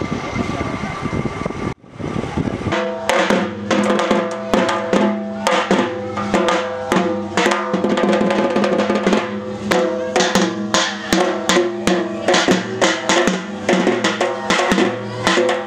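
Dhak, a large shoulder-slung barrel drum, beaten fast with sticks in a dense, driving rhythm, its strokes ringing with a low tone. It starts almost three seconds in, after a stretch of steady background noise that cuts off abruptly.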